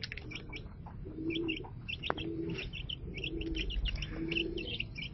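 Aseel chicks peeping: many short, high chirps in quick succession. Underneath, a low call repeats about once a second.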